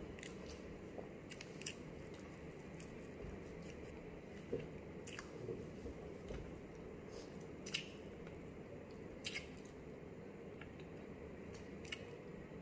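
A man chewing a mouthful of chicken afritada and rice, with scattered sharp mouth clicks and smacks, over a steady low room hum.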